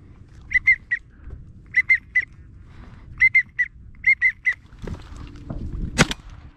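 Wigeon-style whistles, three short clear notes at a time, repeated in four quick sets. Near the end a single loud shotgun shot goes off.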